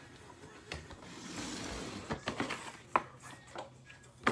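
A cardboard sneaker box and paperwork being handled: a soft rustle of paper, then a few sharp taps and clicks.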